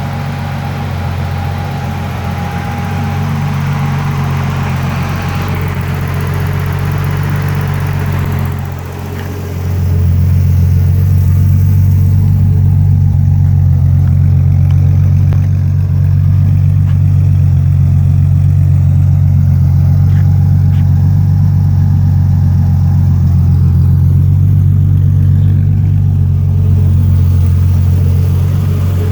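Turbocharged BMW M30 straight-six in an E30 running steadily, with a thin steady whistle from a vacuum leak. The sound drops briefly about nine seconds in, then comes back a little louder.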